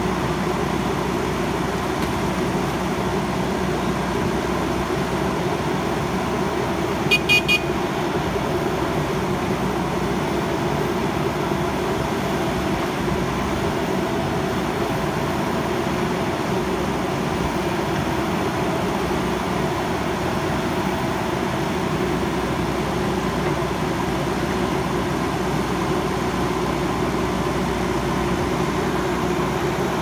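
JCB backhoe loader's diesel engine running steadily. About seven seconds in comes a brief run of four or five quick, high beeps.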